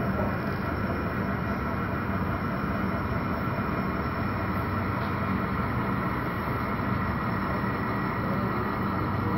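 Model railroad train of four diesel locomotives, an ES44AC leading an SD60 and two SD70ACe units, running slowly at yard speed with a steady low drone.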